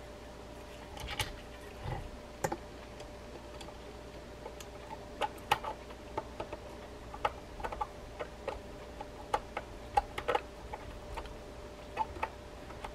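Small, irregular metal clicks and taps as a screwdriver turns and seats the screws in the side plate of a Penn Senator 114H reel.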